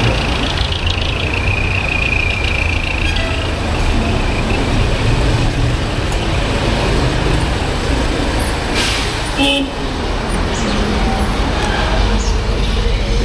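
Dense street traffic: engines of jeepneys and motorcycles running close alongside, over a steady low rumble. A high squeal runs for about the first three seconds, and a short horn toot sounds about nine and a half seconds in.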